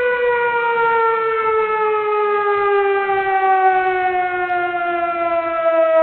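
A siren wailing: one long tone that slides slowly and steadily down in pitch.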